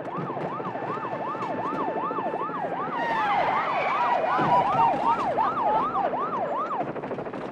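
Police car sirens wailing in a fast up-and-down yelp, about two and a half sweeps a second, with a second siren overlapping from about three seconds in over traffic rumble; the sirens stop shortly before the end.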